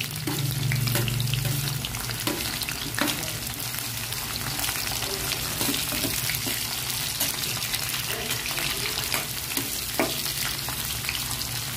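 Garlic and sliced red onion sizzling as they fry in hot oil in a wok, with a metal spatula stirring and scraping against the pan now and then in short clicks.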